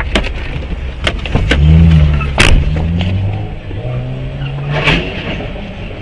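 A car engine running, its pitch rising as it speeds up and then falling back, twice, with several short sharp clicks over it, the loudest about two and a half seconds in.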